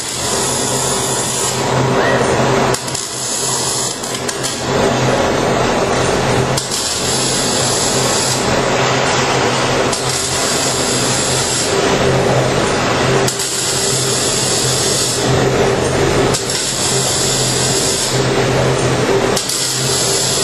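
Robotic MIG welding: the arc crackles in runs of about two seconds, stopping and restarting repeatedly, over a steady electrical hum.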